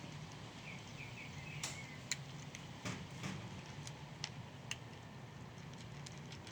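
Scattered faint clicks and taps over a steady low hum, with a short, faint chirping trill about a second in.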